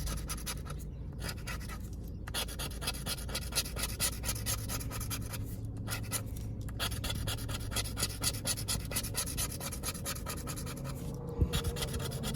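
Rapid scratching strokes rubbing the coating off a $20 Cash Explosion scratch-off lottery ticket, going on with a few short pauses. A single sharp knock about eleven seconds in.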